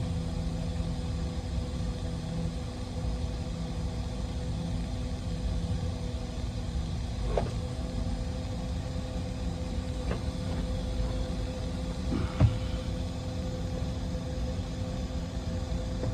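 Steady low mechanical hum with a constant drone, broken by a few faint knocks and one sharper knock about twelve seconds in.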